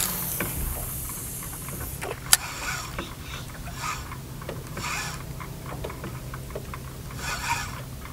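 Spinning reel cranked in short bursts with pauses between, a stepped jig retrieve, with small clicks of rod and tackle and one sharp click about two seconds in.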